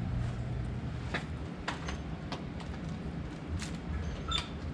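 About five light clicks or knocks, irregularly spaced, over a low steady hum.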